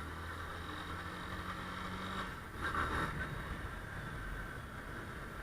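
Motorcycle engine running steadily in street traffic, with a brief louder rush of noise about two and a half seconds in.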